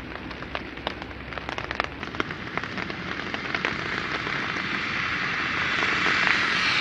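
Freezing rain falling, with many sharp drop ticks over a steady patter. Over the last few seconds a hiss swells steadily louder, like a vehicle's tyres approaching on a wet, slushy road.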